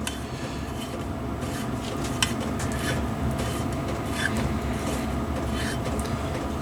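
A steady machine hum with several constant tones, with scattered light clicks and taps of metal tools being handled.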